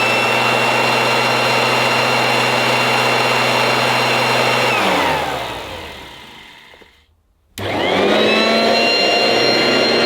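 1980s Goblin Roto mains-powered hand-held vacuum cleaner with a revolving brush running loud with a high steady whine. About five seconds in it is switched off and its motor winds down, falling in pitch to a stop; two and a half seconds later it is switched on again and spins back up to speed.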